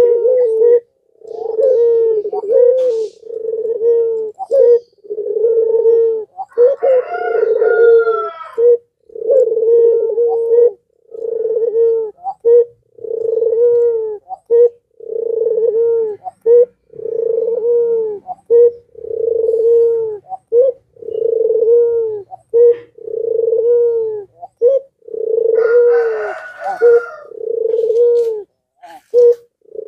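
Puter pelung, a domestic collared dove, cooing in full song ('gacor'): deep, rounded coos repeated one after another, each about a second long with short breaks between.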